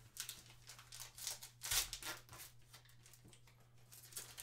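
Panini Mosaic trading-card packs and cards being handled by hand: a run of short rustling, scraping sounds, loudest a little under two seconds in.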